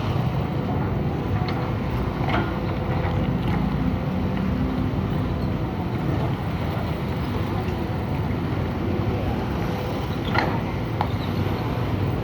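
Excavator's diesel engine running steadily as a low rumble, with a few faint knocks.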